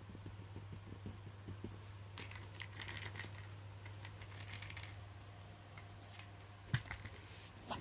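Light clicking and crinkling handling noises in scattered bursts, with a single sharper knock near the end, over a steady low hum.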